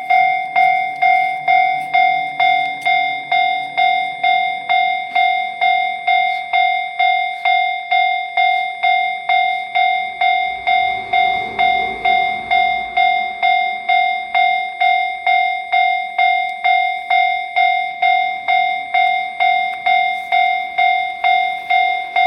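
Japanese railway level-crossing warning bell ringing its steady 'kan-kan', about two ringing strikes a second. A low rumble swells and fades around the middle, under the bell.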